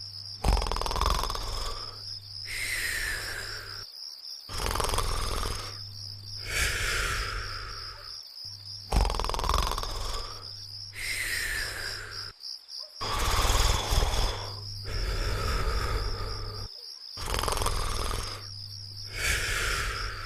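Cartoon snoring: five slow breaths, each a rasping snore followed by a whistle that falls in pitch. A steady high chirping like crickets runs underneath.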